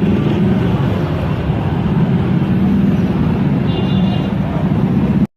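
Vehicle engines idling and running at a petrol station forecourt, a steady low hum, with a brief high whine about four seconds in. The sound cuts off abruptly near the end.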